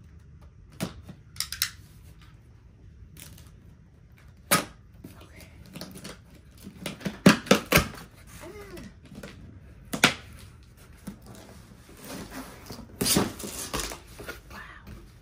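Cardboard shipping box being slit open and unpacked: scattered sharp clicks and knocks of cardboard, a quick run of them about seven seconds in, then a longer scraping rustle of flaps and an inner box being pulled out near the end.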